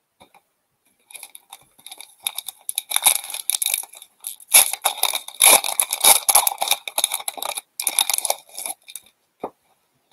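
Foil wrapper of an Upper Deck hockey hobby pack being torn open and crinkled by hand: a run of irregular crackles that starts about a second in, is loudest in the middle, and stops shortly before the end.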